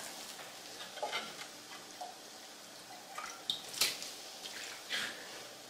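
Warm chicken broth added a little at a time to tamal masa: a few separate drips and small splashes.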